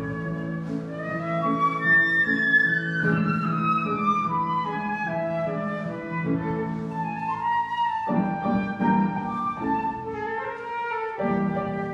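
Instrumental music: a high melody that steps downward over a few seconds, above a steady lower accompaniment.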